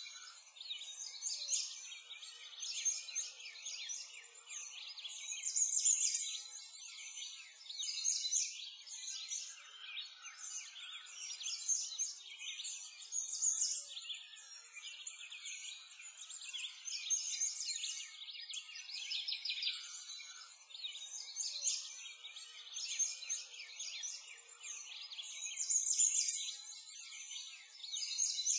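A dense chorus of many small birds chirping without pause, high-pitched with no low sound beneath it, swelling and easing every few seconds.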